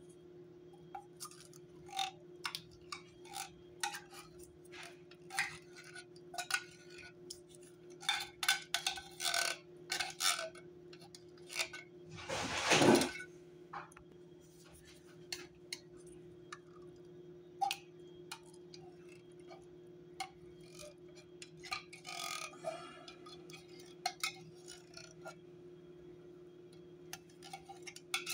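Metal spoon and tin cans clinking and scraping against each other and a pot, in many short, sharp clicks, while condensed cream of mushroom soup is spooned out of the cans onto cooked spaghetti. One longer, louder scraping noise comes about halfway through, over a steady low hum.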